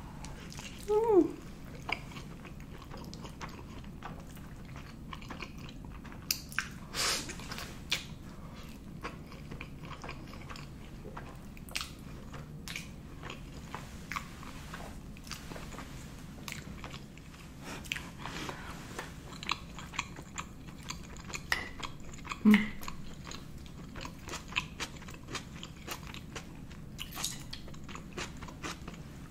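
Close-miked mouth sounds of eating spaghetti carbonara: chewing with many small wet clicks, and a short hummed 'mm' about a second in.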